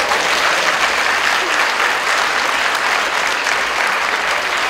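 Theatre audience applauding, the clapping starting abruptly and then holding steady.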